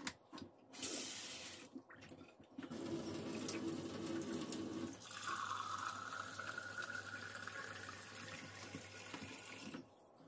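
Tap water running through a PUR FM2500V faucet-mount filter and pouring into a glass mug, a steady rushing that starts about three seconds in and stops near the end.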